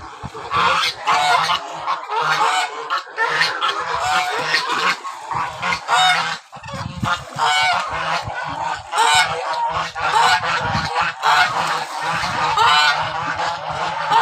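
A flock of lionhead geese honking repeatedly, with many short overlapping calls throughout.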